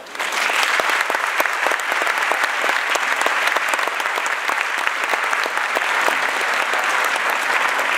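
Audience applauding, a dense steady clatter of many hand claps that breaks out the moment the song ends.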